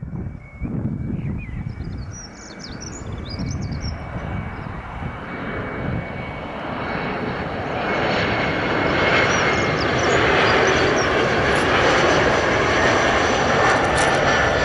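Bombardier CRJ900's two rear-mounted GE CF34 turbofans on landing approach. The jet noise grows steadily louder over several seconds and holds at its loudest from about ten seconds in, with a thin steady high whine.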